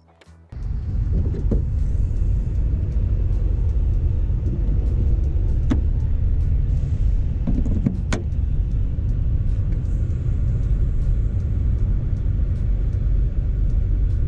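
Loud, steady low rumble outdoors with a few sharp clicks. The loudest click, about eight seconds in, comes as the Tesla Supercharger connector is pushed into the Model S charge port.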